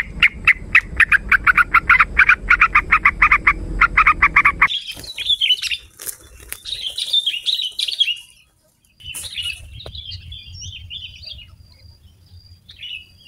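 Songbird calls, typical of kutilang (sooty-headed bulbuls): a fast, even chatter of about eight notes a second for the first four and a half seconds, then scattered chirps and short warbled calls.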